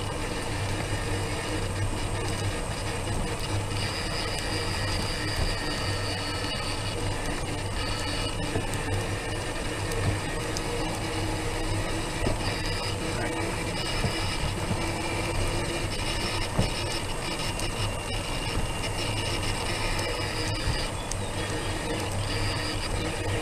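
Slow-rolling vehicle running steadily, with a low hum and thin high whines that come and go and shift slightly in pitch.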